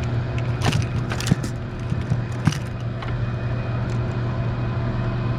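Electric trolling motor running with a steady low hum, holding the boat against the current, with a few sharp clicks and knocks in the first half.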